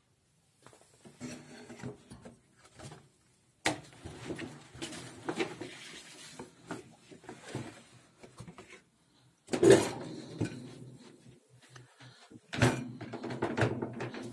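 Folded perforated cardboard music book being handled and fed into a Zimmermann mechanical music instrument: papery rustling and shuffling with several sharp wooden knocks and clunks, the loudest about ten seconds in and again a few seconds later.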